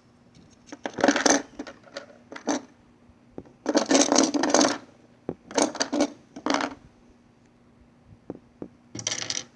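Small plastic Lego pieces clattering and rattling in short bursts, with scattered clicks in between, as hands rummage through them searching for a part.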